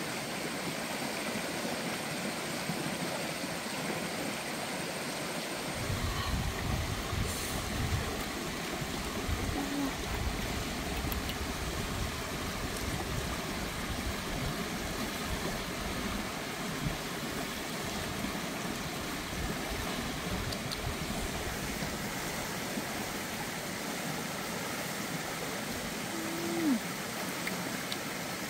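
Steady rushing ambient noise, like running water. Low, uneven rumbles join in about six seconds in, and a short, low falling squeak comes near the end.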